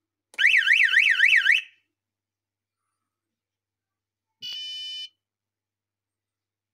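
Electronic buzzer on a homemade airsoft bomb prop: a loud siren-like warble, its pitch sweeping up and down about four times a second, for just over a second near the start. About four and a half seconds in, a single steady beep of about half a second sounds as the A key on its keypad is pressed to start the game menu.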